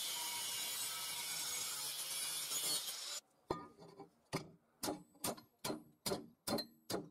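Craft-tec angle grinder grinding the edge of a steel band, a steady high grinding noise that stops abruptly about three seconds in. Then a hammer strikes the steel band against a steel plate: about eight short ringing blows, coming faster, roughly two a second.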